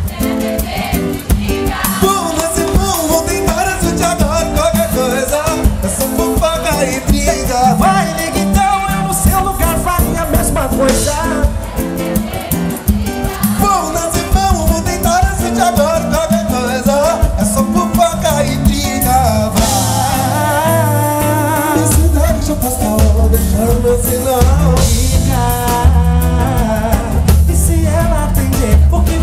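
Live pagode band playing: electric bass, drum kit and samba hand percussion under a male lead singer.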